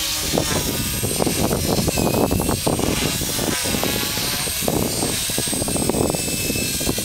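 Radio-controlled model helicopter in flight: a high whine from its motor and rotor head that drifts up and down in pitch as it manoeuvres, over a rough low rumble.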